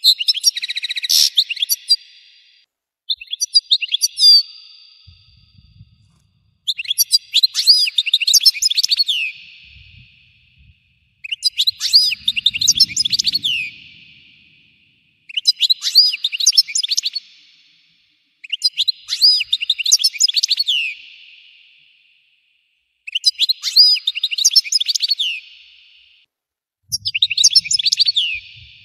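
European goldfinch singing: bursts of fast, twittering song, each two to three seconds long, repeating about every four seconds with short silences between.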